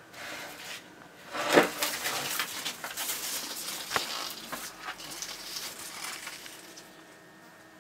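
Dumeril's monitor lizard scrambling through dry bark substrate and leaf litter, a run of irregular rustling and scratching. There is a sharp click about four seconds in.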